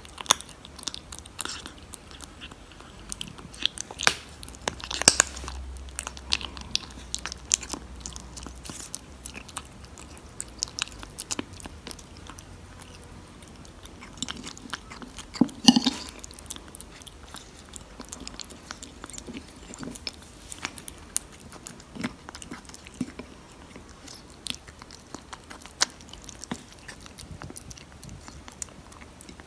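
Tabby kitten chewing and crunching a mix of dry kibble and wet chicken-and-tuna cat food: a fast, irregular run of small crunches and clicks, with two louder knocks about five and sixteen seconds in.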